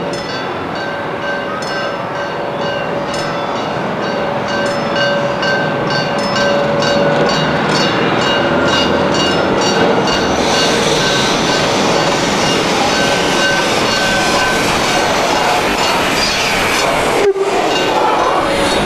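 DRG class 24 steam locomotive 24 009 working a goods train past, its exhaust beating at about two to three a second, with a steady tone held alongside. The sound grows louder about halfway and breaks off briefly near the end.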